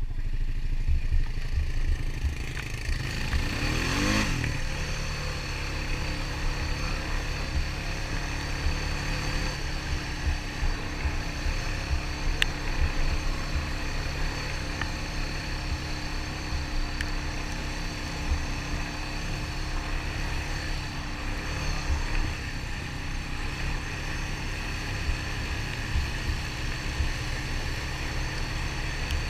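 Honda ATV engine running as the quad rides along a trail, with a brief rev-up about three to four seconds in.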